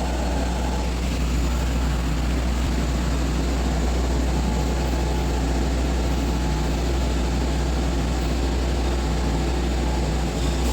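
TIG welding arc on stainless steel pipe during a walking-the-cup root pass: a steady hiss over a constant low hum.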